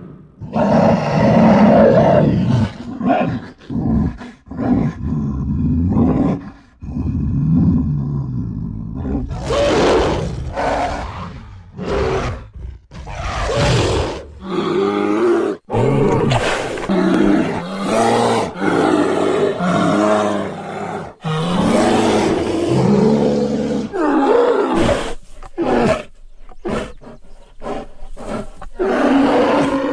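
A string of separate animal roars and growls, one after another with short breaks between them, used as a cartoon bear character's sound effects.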